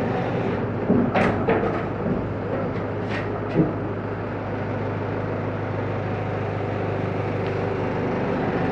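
Diesel engine of a Manitou telehandler idling steadily. A few short knocks about a second in and again around three and a half seconds in, as a concrete panel is shifted into place.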